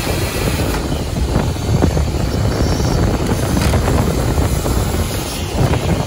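Wet/dry shop vacuum running steadily, its hose nozzle sucking up debris and overflowed water from an AC evaporator coil's condensate pan.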